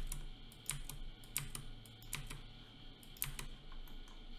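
Irregular clicks of a computer keyboard and mouse, several coming in quick pairs, as values are entered in software.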